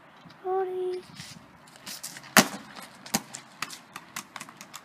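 Plastic Coca-Cola bottle, pressurised by Mentos foaming under its cap, shooting off and hitting the asphalt with a sharp crack about two and a half seconds in, then bouncing and skittering across the road in a run of lighter knocks.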